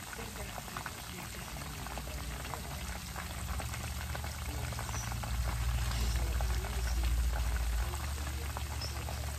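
Chicken frying in hot vegetable shortening in an electric skillet: a steady sizzle with many small pops and crackles. A low hum swells under it from a few seconds in and drops back near the end.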